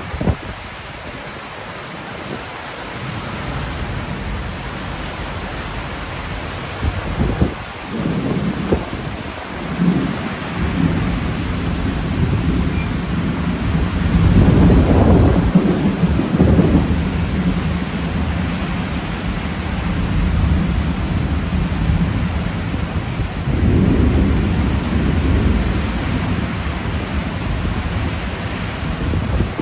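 Heavy rain pouring down onto trees and corrugated metal roofs, a steady hiss, with long, low rumbles of thunder rolling through; the loudest rumble comes about halfway.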